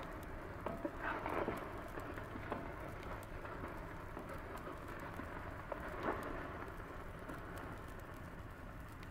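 Strawberries cooking in a little water in a pot: a steady sizzle with scattered small pops, swelling louder about a second in and again about six seconds in.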